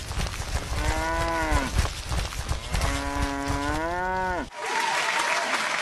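A cow mooing twice as a cartoon sound effect: a call about a second in, then a longer one that swells and cuts off about four and a half seconds in. Applause takes over at that point.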